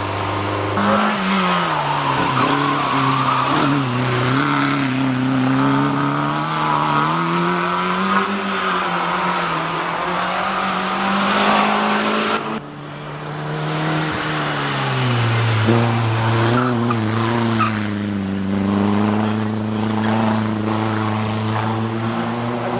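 Racing car engine, a small-displacement group N hillclimb car, revving hard and changing gear as it climbs, its pitch rising and falling again and again. About halfway through the sound cuts off abruptly and another car's engine takes over, getting louder as it approaches.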